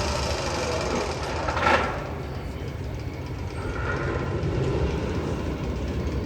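Magnum XL 200 roller coaster train rumbling with a clattering rail noise, with one sharp, loud burst just under two seconds in.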